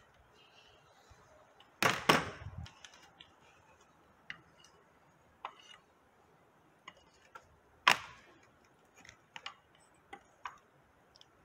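Metal clicks and knocks from hand tools and bolts on the Honda six-speed transmission's case: a heavy clunk about two seconds in, a sharp clack near eight seconds, and light irregular ticks in between.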